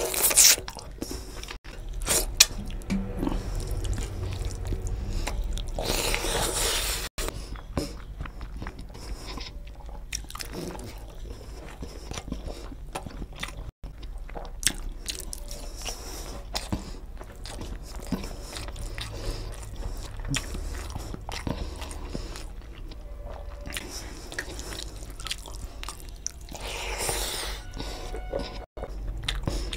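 Close-miked mouth sounds of a man eating rice and egg curry with his fingers: chewing, with many short wet clicks of lips and teeth, and a longer hissing sound about six seconds in and again near the end.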